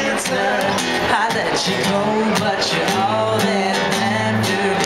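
Live pop-rock song: a male lead voice singing over two strummed acoustic guitars.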